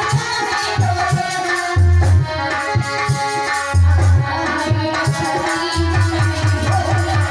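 Loud music for stage dancing, with heavy bass beats pulsing under a held melodic line.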